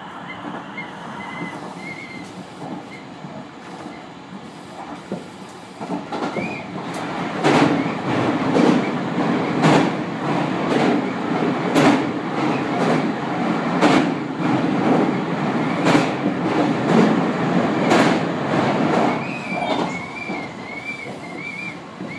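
Tobu 50000 series electric train running at speed, heard from inside the front car. The rumble grows louder about six seconds in, and from then on the wheels clack over rail joints roughly once a second. A faint wavering squeal comes near the start and again near the end.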